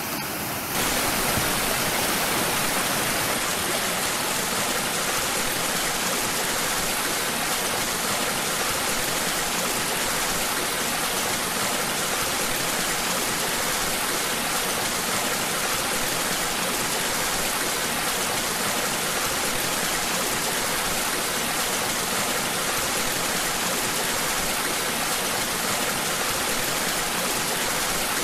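Whitewater rushing steadily through an artificial canoe slalom channel, a dense, even wash of turbulent water. It gets a little louder about a second in, then holds steady.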